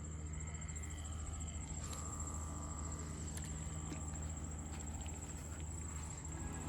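Insects trilling steadily at a high pitch, over a low steady hum from the minnow bucket's battery air pump.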